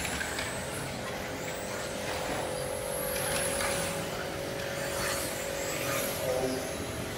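Electric 1:10 touring cars with 17.5-turn brushless motors racing: a faint high motor whine that rises and falls with the throttle, over a steady hiss.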